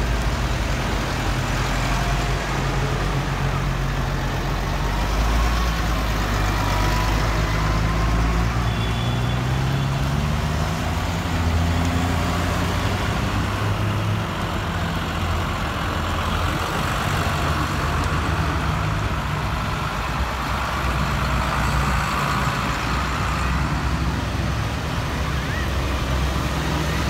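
New Holland tractors' diesel engines running as the tractors drive past one after another, the engine pitch rising and falling as each one goes by.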